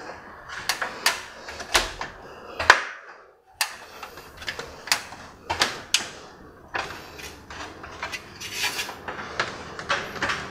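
Footsteps and knocks on a steep wooden-treaded attic ladder as someone climbs it. Irregular sharp knocks come about one or two a second, with a brief pause about three seconds in.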